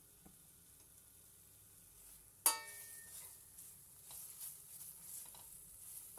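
Laksa paste and onions frying in oil in a stainless steel pan. About two and a half seconds in, the metal spoon clanks sharply against the pan and rings briefly, and after it the sizzling and stirring go on louder, with small clicks.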